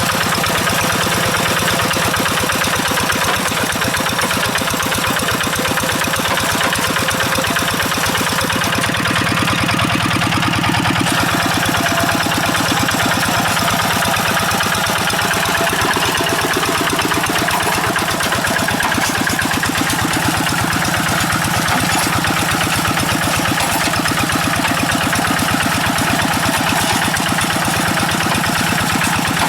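Kubota RD85 DI-2S single-cylinder diesel engine on a two-wheel hand tractor, running steadily with a rapid, even putter.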